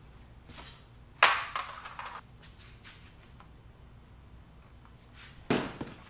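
Sharp plastic clacks and rattles from a 3D-printed PETG fishing bobber being handled and stressed, with the loudest clack a little over a second in and another near the end.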